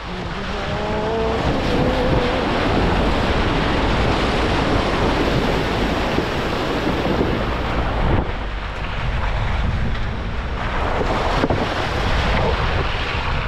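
Jeep driving along a rough dirt trail, its engine and tyre noise mixed into heavy wind rushing over the microphone. A short rising tone about a second in.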